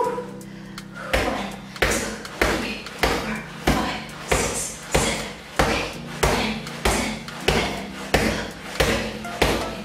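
Boxing gloves punching a free-standing reflex punching ball, a steady run of hits at about three every two seconds, starting about a second in.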